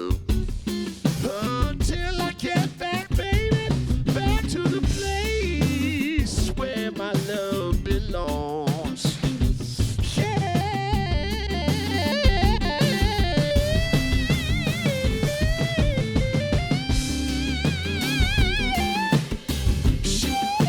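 Instrumental section of a mixed pop song: guitar over a drum kit and bass, with no singing. A wavering melody line comes in about halfway through.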